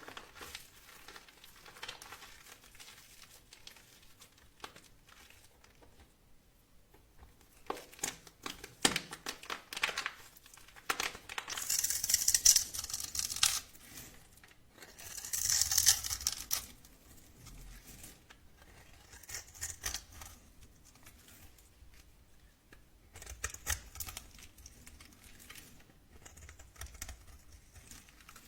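Dry crackling, crumbling and tearing sounds of something being cut or crushed by hand, in irregular bursts. The loudest bursts come about 12 and 16 seconds in.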